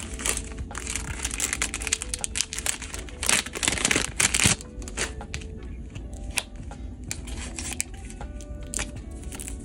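Clear plastic packaging crinkling and rustling as a bag is pulled open by hand, loudest about three to four and a half seconds in, then lighter crackles, over background music.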